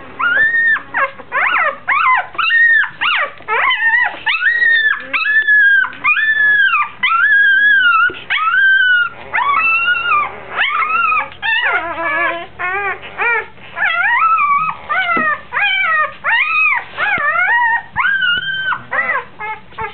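Newborn puppy crying: a loud run of high, repeated cries, each rising and falling in pitch, coming shorter and quicker in the second half. The pup has strayed from its mother and cannot find a teat to nurse.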